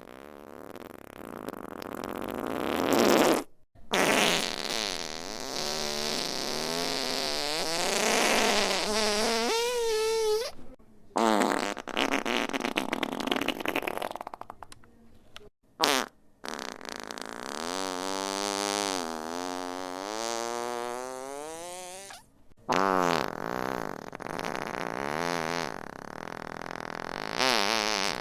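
A run of about six fart sound effects, one after another with short breaks between. Most are long, drawn-out farts whose pitch wavers up and down, and one short blip comes in the middle.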